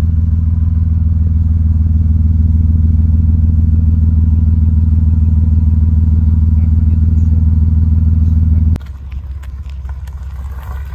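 1997 Toyota Supra's inline-six idling steadily at the exhaust tip, a deep even drone. About nine seconds in it drops much quieter as it is heard from farther off, with a few light handling clicks.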